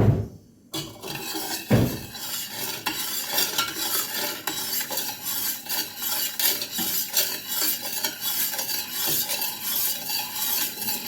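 A spoon stirring sugar into a cup of herbal tea: a steady, fast run of clinks and scrapes against the cup that starts about a second in. A single low thud comes shortly after it starts.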